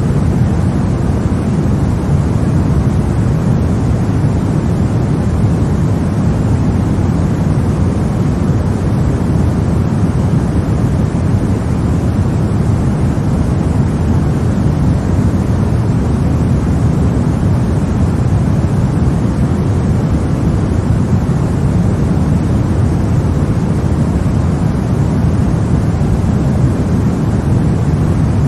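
Steady white noise for baby sleep: an even, unchanging rushing noise, deepest and strongest in the low range, with no rhythm, tones or breaks.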